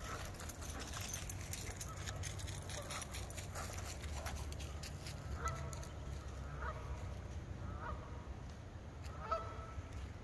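Geese honking from the lake, a series of short calls about a second apart that grow plainer in the second half, over a steady low rumble.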